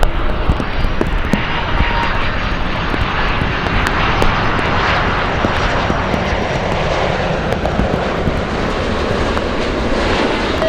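Jet airliner engines running, a steady loud rush that swells slightly partway through and eases off again.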